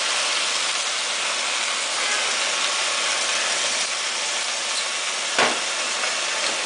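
Steady sizzle of vegetables stir-frying in a hot steel wok as soy sauce is poured in, with a single short knock about five seconds in.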